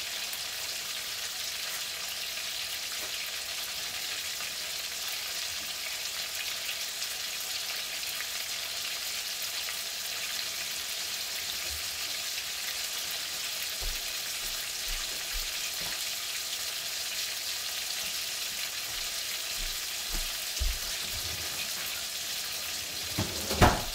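Food sizzling steadily as it fries in hot oil in a pan, with a few knocks near the end, the loudest just before it stops.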